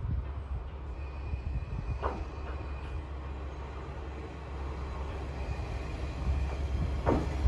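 JR Kyushu KiHa 40-series diesel railcar approaching slowly, its engine a steady low rumble that grows louder in the second half, with a couple of brief falling squeals about two seconds in and near the end.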